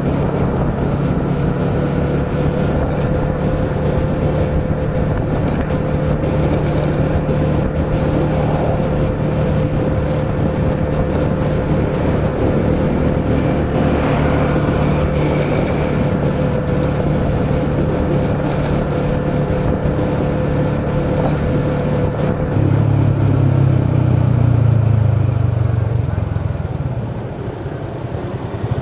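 Motorcycle engine running at a steady cruising speed, with wind and road noise. About 23 seconds in the engine note rises and grows louder as the bike speeds up, then falls away near the end.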